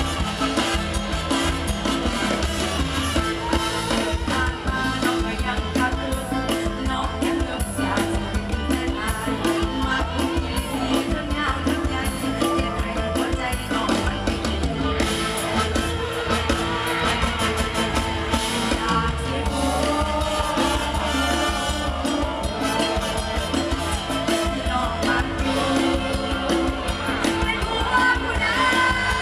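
Live mor lam band music with a woman singing through the stage microphone over a steady beat from a drum kit and hand drums.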